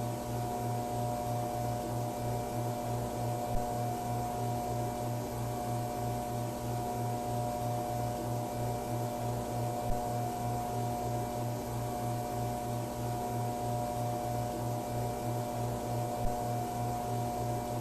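Backrooms-style electrical hum of buzzing fluorescent lights: a constant hiss with several steady tones over a low throb that pulses about two and a half times a second. Three brief ticks come about six seconds apart.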